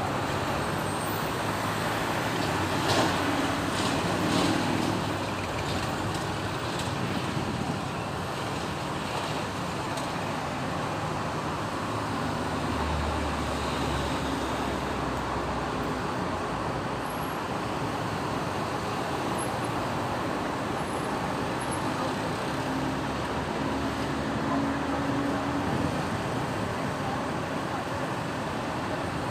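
City street traffic: a steady wash of road noise from passing cars, buses and trucks. A heavy vehicle's low engine rumble swells about halfway through.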